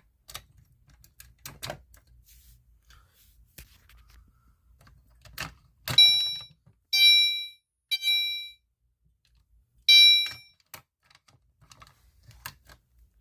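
Clicks and knocks of a fire alarm pull station being handled, with a louder clack about five seconds in. Then a fire alarm horn sounds three short beeps, pauses, and gives a fourth beep before stopping, in the temporal-3 evacuation pattern.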